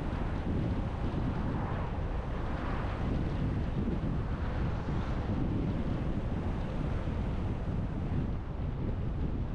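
Steady rush of wind and road noise from a car driving along a road, with a low rumble.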